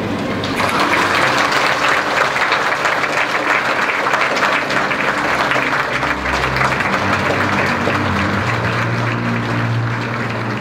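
A large audience applauding, starting about half a second in and holding steady, with music coming in underneath during the second half.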